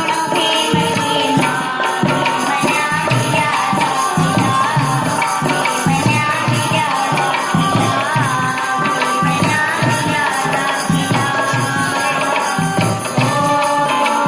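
Music from a Hindi folk-style song: a melody over a steady rhythmic percussion beat.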